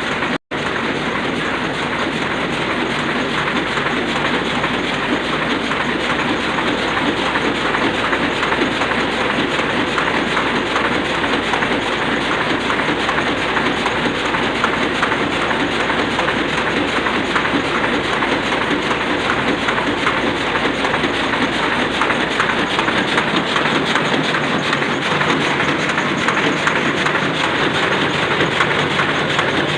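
Sakurai Oliver 66 sheet-fed offset printing press running, a steady mechanical clatter with a fast, even beat. The sound drops out for an instant about half a second in.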